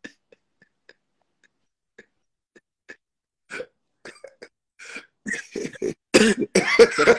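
Men laughing: a few short, breathy bursts of laughter from about three and a half seconds in, breaking into loud laughter near the end.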